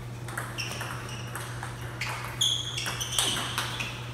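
Table tennis ball being struck by paddles and bouncing on the table in a rally: a series of sharp, ringing pocks about every half second, the loudest a little after halfway. A steady low hum runs underneath.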